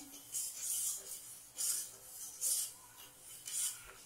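A steel spoon scraping through wet, undissolved sugar against the bottom of a steel pot. It makes a gritty rasp in about four separate strokes, roughly one a second, as the sugar and water are stirred to melt into syrup.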